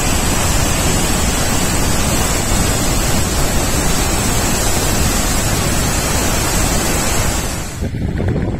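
Steady, loud roar of water plunging over Murchison Falls, an even rushing noise with no rhythm that breaks off abruptly near the end.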